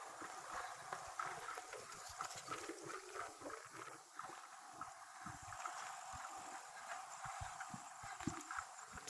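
Bicycle being ridden along a trail, with an irregular patter of small knocks and rattles and low thumps over a steady hiss of riding noise.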